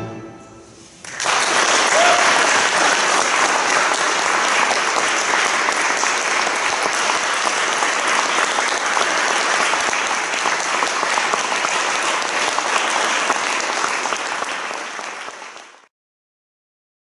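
The last plucked chord of a mandolin, guitar and double bass dies away, then an audience applauds steadily and fades out near the end.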